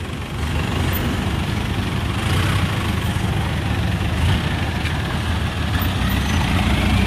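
Vehicle engines idling steadily in slow traffic.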